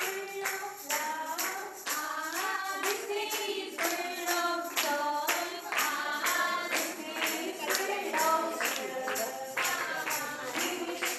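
Music: singing over a steady beat of evenly spaced percussion strokes.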